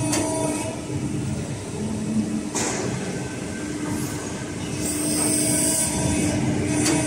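Electric-hybrid servo press brake cycling its ram: a steady hum from the servo drive and hydraulics as the punch lowers toward the V-die and rises again, with a brief hiss about two and a half seconds in and another near the end.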